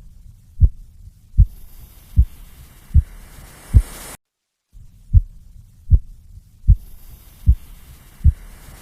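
Heartbeat sound effect: single deep thumps at a steady pulse of about 77 beats a minute over a faint low hum, broken by a half-second silent gap a little past the middle.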